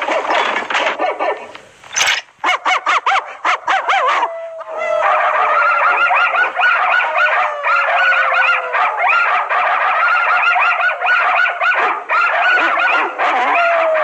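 Cartoon dogs barking and howling to raise an alert: a quick run of barks, then many dogs barking and baying over one another in a dense chorus. A long falling howl starts about four seconds in, and another comes near the end.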